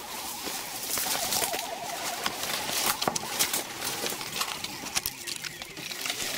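Dry twigs and bare brush crackling and snapping in many sharp clicks, with rustling, as someone pushes through undergrowth on foot. A bird calls with a wavering, warbling note during the first couple of seconds.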